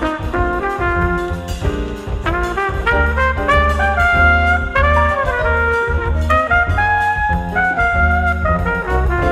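Background music: a jazzy melody moving through short notes and glides over a strong bass line and a steady drum beat.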